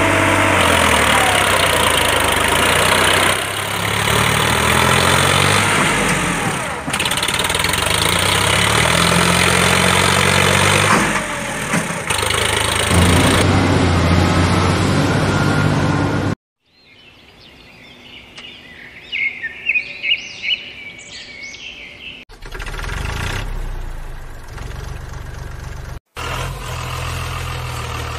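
An engine running loudly, its pitch stepping up and down as the revs change, cuts off suddenly about two-thirds of the way through. Birds chirp for a few seconds in the quiet, then the engine sound comes back, steadier and lower.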